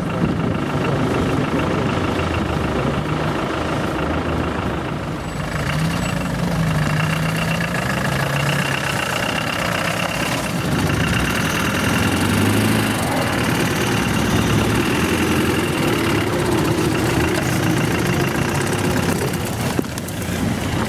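Off-road 4x4 engines working under load in snow and mud. From about five seconds in, a Land Rover Defender's engine revs up and down repeatedly as its tyres push through the snow.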